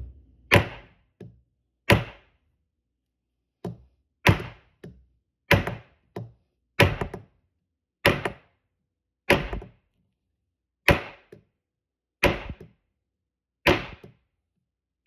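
Inertia (hammer-type) bullet puller struck again and again against a hard surface to knock the bullet out of a .223 dummy cartridge. There are about a dozen sharp blows, roughly one every second and a half, each followed by a lighter knock. The bullet has not yet come free.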